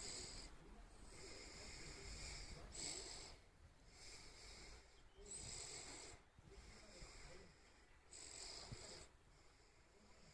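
Faint breathing of a sleeping German shepherd puppy: a soft, wheezy breath about every second or two, with a longer pause of a couple of seconds past the middle.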